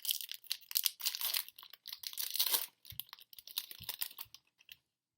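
Foil wrapper of a trading-card pack being torn open and crinkled in the hands, with a couple of soft knocks from handling. The crackling stops shortly before the end.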